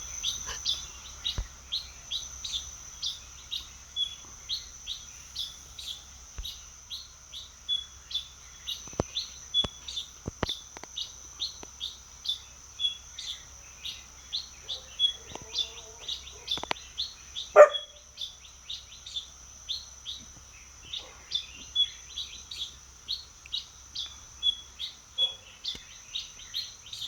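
Wild birds singing at dawn: short, falling chirps repeated about twice a second over a steady high buzz. A single louder, lower call stands out a little after halfway.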